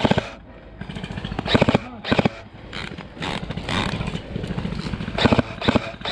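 Airsoft electric guns firing short bursts, several times, with a steady low buzz between them.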